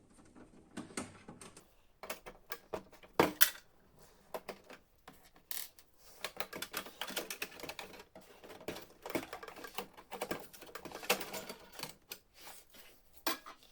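Hand work on a Canon MF4410 laser printer's internals while its metal motor-and-laser shield is taken off: irregular clicks, taps and small knocks of metal and plastic parts, with a sharper knock about three seconds in.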